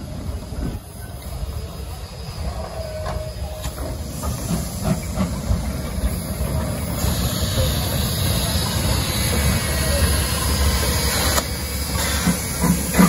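Steam locomotive T251 running slowly past at close range: a low rumble of wheels on the rails with a few knocks, and from about seven seconds in a loud hiss of escaping steam that cuts off sharply a few seconds later.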